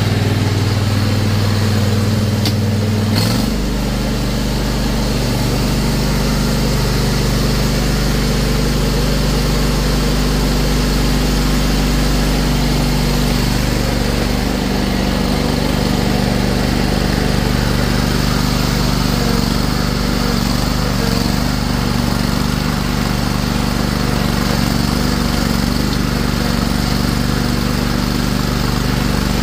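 Toro stand-on mower's engine running steadily as the machine is driven. Its note shifts about three seconds in and again around thirteen seconds in.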